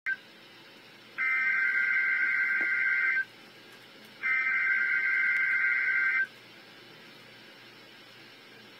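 Emergency Alert System SAME digital header: two bursts of buzzy two-tone data warble, each about two seconds long and about a second apart, with the end of an earlier burst clipped at the very start. The data encodes the alert ahead of the weather radio alarm tone.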